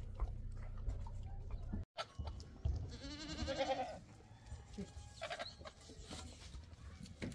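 A farm animal bleating: a quavering call about a second long, then a shorter one. Before them a low steady hum breaks off about two seconds in.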